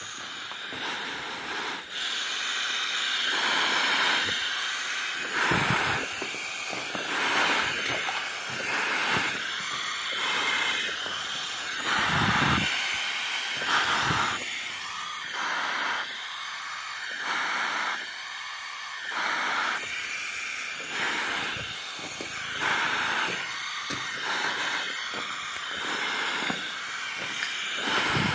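Footsteps of a person walking, repeating roughly every second or so over a steady hiss.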